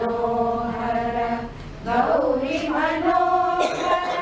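Group of women singing a devotional hymn in unison from hymn books, in two long held phrases with a short break about halfway.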